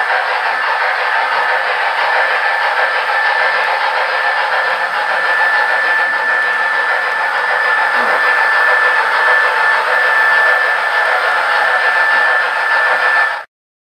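Model train running on the layout: a steady whirring hiss with a thin high whine from motor and wheels on the track, cutting off abruptly near the end.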